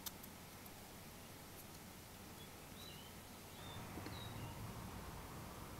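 Quiet room tone with a few faint, short, high chirps of a small bird a little past halfway. Just after them the soft background noise rises slightly.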